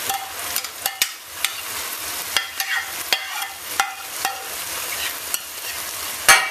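Metal spoon scraping and tapping peas, carrots and marinade out of a bowl into a stainless steel pot, in irregular clicks over a steady sizzle of chicken frying on high heat. Near the end, one loud knock with a short ring as the bowl strikes the pot.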